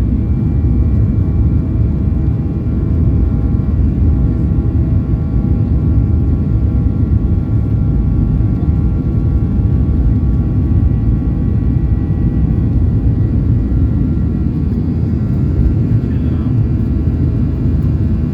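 Boeing 737-800's CFM56-7B turbofan engines at full takeoff power: a steady heavy rumble with several steady whining tones above it.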